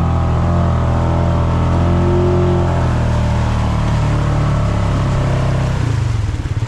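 Engine of an off-road trail vehicle running steadily, then dropping to a slower, pulsing idle about six seconds in.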